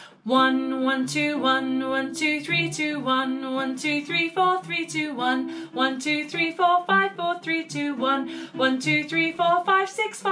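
A woman singing a fast counting vocal warm-up on pitch, a quick unbroken run of short notes, with a hollow-body guitar playing along.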